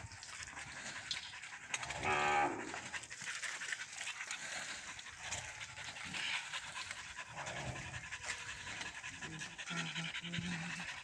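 A dog panting close by, in a steady rhythm of quick breaths, with one brief loud pitched cry about two seconds in.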